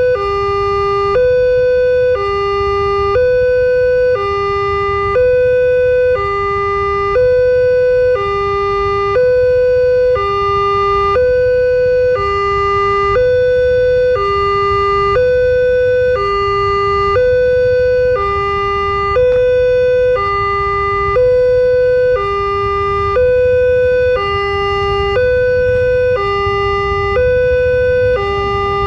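Railway level-crossing warning alarm sounding a steady electronic two-tone, alternating between a higher and a lower note about once a second: the signal that a train is approaching and the crossing is closed.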